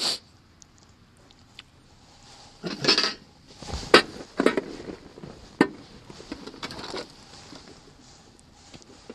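Rustling and sharp clicks of small objects being handled on a table, loudest about four seconds in, with a few more clicks through the middle.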